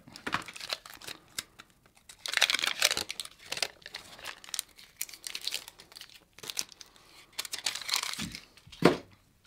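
Blu Tack packet being opened and handled: cardboard box and paper backing crinkling and tearing, with scattered small clicks. A sharp knock near the end is the loudest sound.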